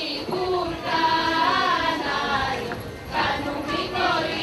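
A group of women singing a Thracian Easter dance song together, with long held, bending notes.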